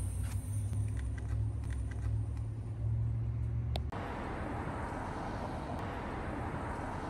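A low, steady hum of a car idling. It cuts off abruptly about four seconds in and gives way to a steady, even outdoor hiss.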